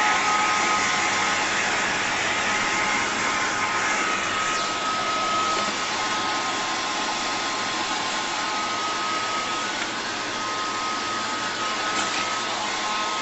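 Hair dryer running steadily, a constant rush of blown air with a thin steady whine.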